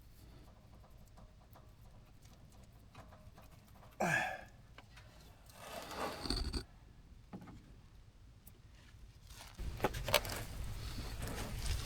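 Faint clicks, clinks and scrapes of hand tools and metal parts as bolts are worked loose under a Honda Pioneer 1000 side-by-side. There are short louder scrapes about four and six seconds in, and a steady low rumble from about ten seconds in.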